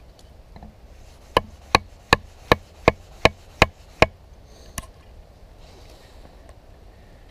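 Wooden baton striking the spine of a Delta Whiskey Farnhawk knife eight times in a steady rhythm, about three blows a second, driving the blade into a branch, followed by one lighter knock.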